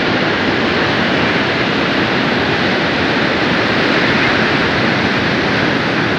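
Strong wind and high Lake Michigan waves pounding a pier: a loud, steady rush of noise with no breaks.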